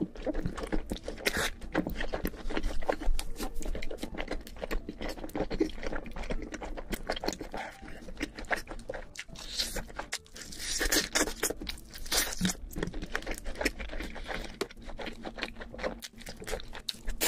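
Crunching and chewing of fried chicken: a dense run of crisp crackles as the breading is bitten and chewed, with a few louder clusters of bites.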